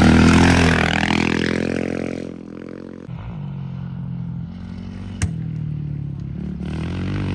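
An off-road race motorcycle passes close at speed with dirt scraping and spraying, its engine revs climbing for about two seconds as it pulls away, then fading. A sharp click about five seconds in, and the engine of another race motorcycle grows louder as it approaches near the end.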